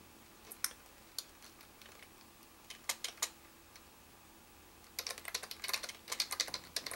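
Typing on a computer keyboard: a few scattered keystrokes at first, then a quick run of rapid keystrokes over the last two seconds.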